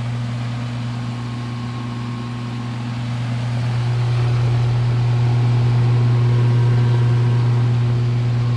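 Heat pump outdoor unit running: a steady low hum with the condenser fan turning on its newly fitted motor, growing a little louder about halfway through. The new fan motor runs smooth and quiet, without the squeal of the old motor's worn bearings.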